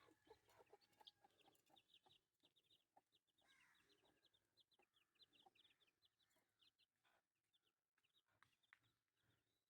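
Chickens heard faintly: quick runs of short, high peeping calls throughout, with a few lower clucks near the start.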